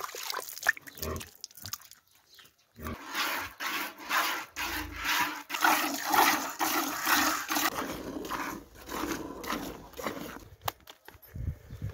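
A cow being milked by hand: rhythmic squirts of milk hitting a plastic bucket, starting about three seconds in after a few scattered knocks.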